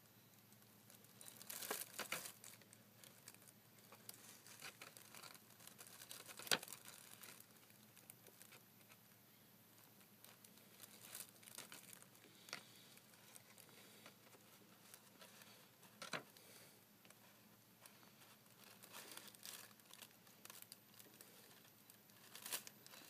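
Faint, scattered rustling and crinkling of a folded paper banknote being handled, with a sharper click about six and a half seconds in.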